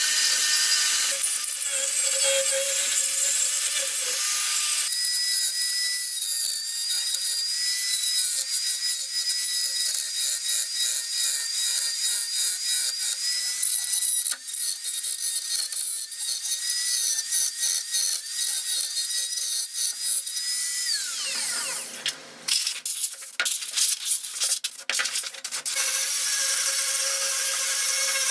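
A high-speed power tool grinding or cutting bamboo root, with a steady motor whine. About three-quarters of the way through, the motor winds down, and a few seconds of clicks and knocks follow before the grinding noise starts again.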